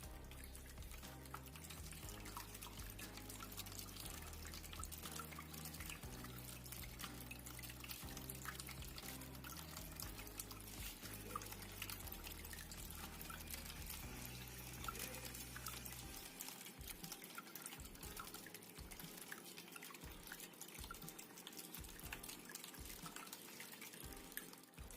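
Water from a small tabletop fountain trickling and dripping in many small splashes. Soft low background music runs under it and stops about two-thirds of the way through.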